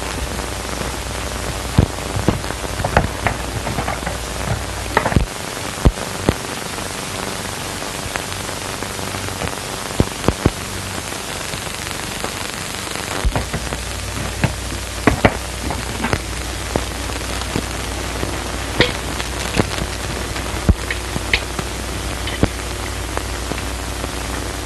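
Steady hiss with scattered irregular clicks and pops: the surface noise of an early-1930s film soundtrack. A low hum underneath drops out for several seconds partway through.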